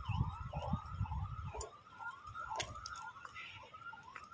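An electronic yelp siren whose pitch rises and falls about twice a second, over and over. Beneath it, a low rumble early on and a few sharp clicks, like stones being knocked together.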